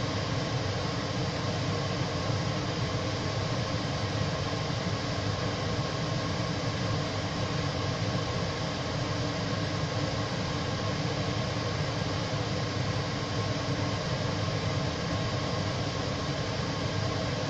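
Steady rushing noise, heaviest low down, from a lidded pan of spiced curry gravy simmering on an induction hob, with the hob's cooling fan running under it.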